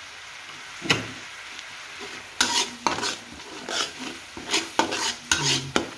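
Sambal sizzling in a wok while a metal spatula stirs it. After one knock about a second in, from about halfway through the spatula scrapes and clanks against the pan in quick, irregular strokes.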